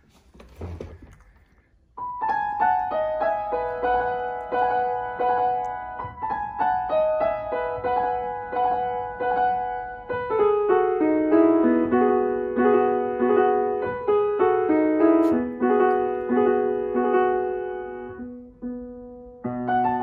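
Steinway & Sons grand piano being played: a slow melody with chords and held notes, starting about two seconds in, breaking off for a moment near the end and then going on.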